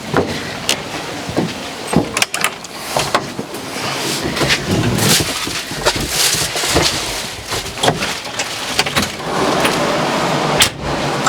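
Diesel farm tractor running while it is driven and manoeuvred, with many sharp clunks and rattles at uneven intervals over the steady engine noise.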